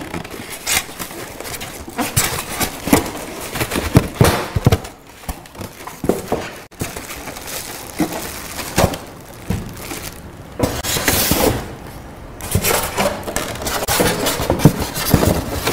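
Polystyrene foam packing squeaking, crackling and scraping as the foam shell is pulled apart and lifted off, with irregular knocks as the pieces and the boxed machine are set down on a metal table.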